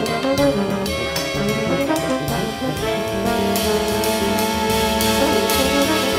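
Jazz ensemble of saxophones, trumpet, trombone, tuba, piano, bass and drums playing live. Quick moving lines give way about three seconds in to a long chord held by the horns, trombone prominent.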